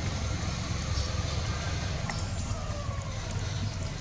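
Steady outdoor background noise with a low rumble and a few faint clicks.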